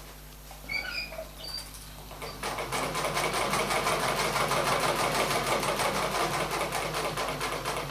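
Motor-driven Olivia sewing machine starting up about two and a half seconds in and running steadily, stitching zigzag with a fast, even rhythm. A few faint small sounds come before it.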